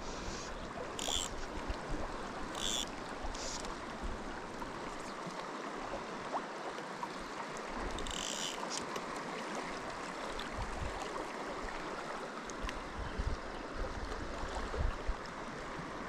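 River water running steadily, with wind buffeting the microphone on and off, and a few brief high-pitched chirps.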